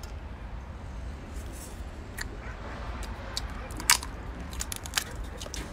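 Cooked lobster shell cracking as it is bitten into and pulled apart, with chewing: a scatter of sharp clicks, the loudest about four and five seconds in, over a low steady hum.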